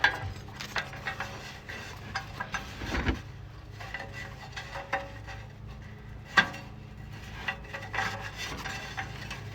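Scattered metal clicks and scraping of a flare nut wrench turning a just-loosened oxygen sensor out of the exhaust pipe, with sharper knocks about three and six seconds in.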